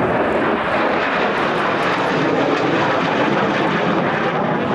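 Swing-wing military jet flying overhead, its engines making a loud, steady rushing noise.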